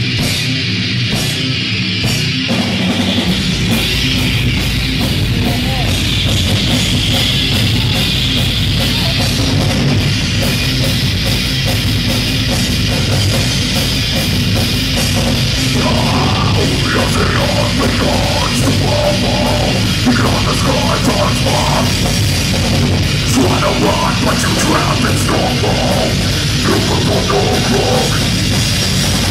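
Metal band playing live in a club, recorded from the audience. Electric guitar plays alone at first, then drums and bass come in about three seconds in, and vocals join about halfway.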